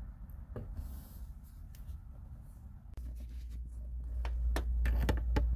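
Faint scattered clicks and light rubbing of hands handling plastic heater-control parts under a dashboard, over a low rumble that grows louder about halfway through.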